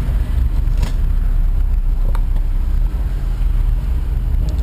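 Steady low rumble inside a Honda Civic's cabin, with a few light clicks as the Sony head unit in the dash is handled.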